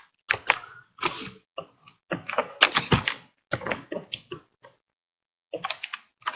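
Packaging of a trading-card collection box being handled and opened: irregular crackles and clicks of cardboard and plastic wrap, in short clusters with a brief pause about five seconds in.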